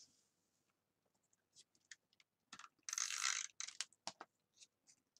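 Light clicks and a short rasping burst about three seconds in, from an adhesive tape runner being run along the back of a small cardstock sentiment strip, with a few sharper clicks just after.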